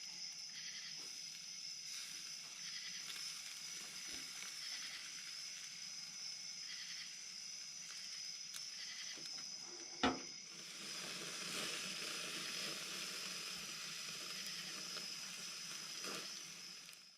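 Night insects holding a steady high-pitched chorus, with one sharp knock about ten seconds in, after which a soft hiss rises under the chorus until the sound cuts off.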